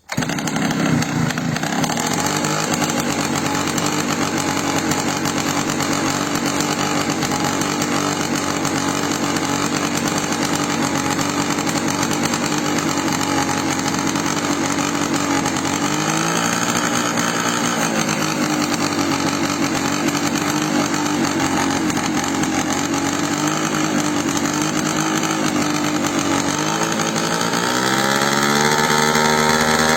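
Small fuel-burning RC model airplane engine running at steady speed. The engine speed dips briefly about halfway through and rises higher near the end as it is throttled up.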